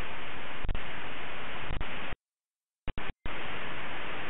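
Radio receiver static: a steady hiss of open-squelch noise between air traffic control transmissions, with a couple of faint clicks. About halfway through it cuts out to silence for about a second, broken by two short blips, then comes back.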